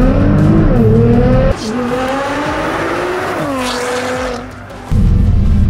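Nissan GT-R R35's twin-turbo V6 accelerating hard, its pitch climbing steadily and falling once about three and a half seconds in. It is heard from inside the cabin at first, then from outside as the car pulls away.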